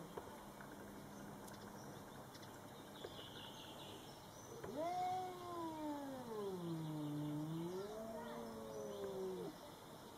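A domestic cat gives one long yowl of about five seconds, starting a few seconds in. Its pitch falls, sags low, rises again and then breaks off. It is a warning yowl at an unfamiliar cat.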